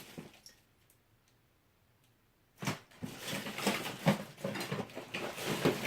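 Rummaging through a box of loose computer parts and cables: a few faint clicks, then from about two and a half seconds in a busy run of rustling and clattering as items are shifted and handled.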